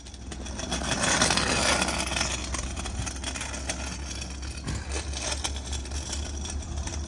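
Outdoor ambient noise: a steady rushing hiss over a low rumble, with scattered light clicks and scrapes.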